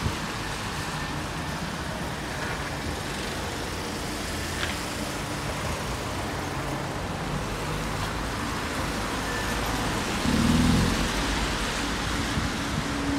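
Street traffic on a wet road: cars and a van driving past, with the noise of their tyres and engines. A vehicle passes close about ten seconds in, the loudest moment.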